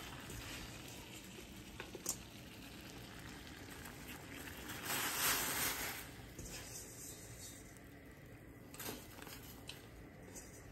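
Water at a rolling boil in a stainless steel pot on a gas stove, a faint steady bubbling hiss, with a louder stretch of hissing and bubbling about five seconds in as the noodles go into the pot. A few light clicks of utensils or pot now and then.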